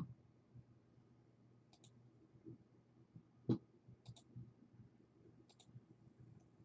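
Faint scattered clicks, several coming in quick pairs, with one louder knock about three and a half seconds in.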